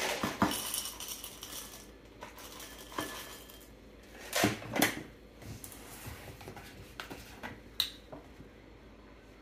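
Dry ring cereal poured from a plastic container, rattling into a ceramic bowl for about two seconds, followed by a few separate knocks of containers set down on a countertop, two close together midway, and a sharp click near the end.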